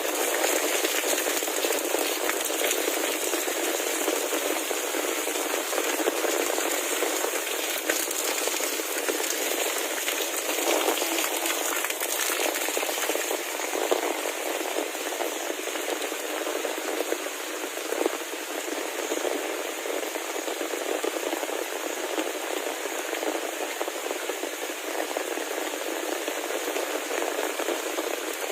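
Heavy rain falling, a steady even hiss with a few sharper ticks of drops here and there.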